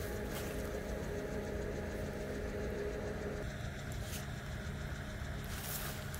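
An engine or motor running steadily with a low hum; a higher steady tone in it stops about three and a half seconds in.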